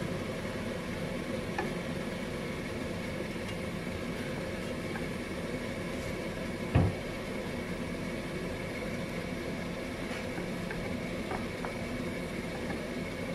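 Instant noodles being stirred with a spoon in a steel pot of simmering broth on a gas stove: a steady hiss with faint small taps, and one sharp knock of the spoon against the pot about seven seconds in.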